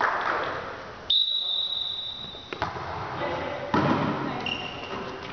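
A referee's whistle blows one steady high note for about a second and a half, the signal for the serve. About a second later comes a single thud of the volleyball being struck, amid players' voices in a large gym.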